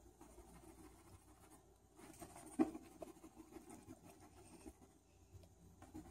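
Faint scratchy scraping of a fingertip pushing a small ring across a wooden floor, with a sharper tap about two and a half seconds in.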